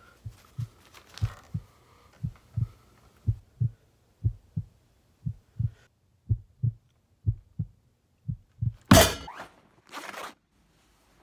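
A heartbeat, nine low double thumps (lub-dub) at about one beat a second. About nine seconds in, a loud sudden burst of noise cuts across it, followed by a shorter burst a second later.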